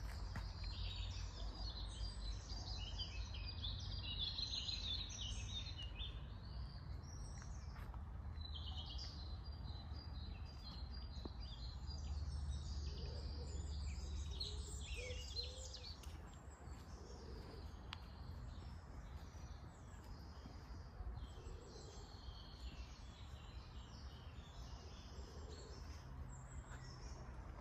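Several songbirds singing and chirping in woodland, with many overlapping phrases that thin out after the middle, over a low steady rumble.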